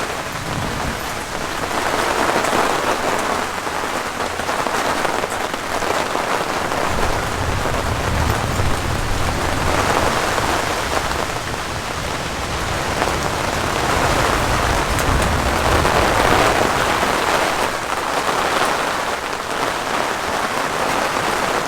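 Heavy thunderstorm rain pouring down, a dense hiss that swells and eases in waves, with a low rumble underneath for several seconds in the middle.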